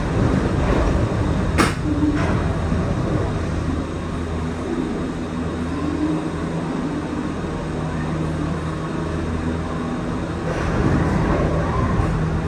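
Disney Skyliner gondola cabin running through the station: a steady low hum and rumble, with a sharp click about one and a half seconds in.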